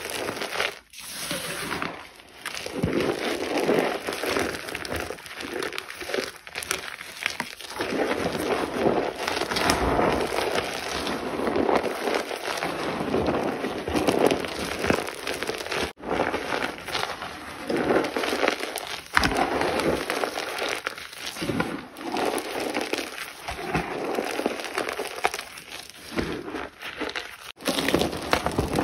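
A brittle, crumbly material being crushed and crumbled in a dense, continuous run of crunching and crackling, broken by a few short pauses.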